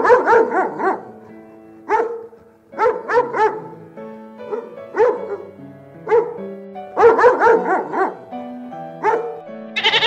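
Dachshund puppy yapping in short clusters of high barks, a fresh cluster every second or two, over background music. Near the end a sheep bleats.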